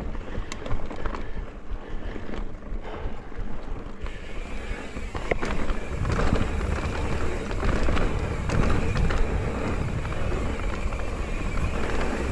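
Mountain bike riding over dirt singletrack: tyres rolling, with sharp clicks and rattles from the bike early on. Rumble and wind noise on the microphone grow louder about halfway through as the bike picks up speed.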